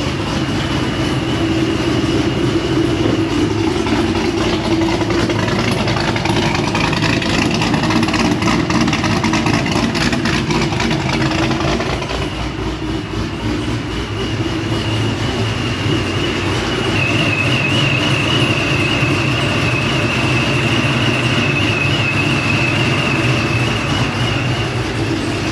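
Vehicle engine running at a steady idle, with a faint high steady whine over it.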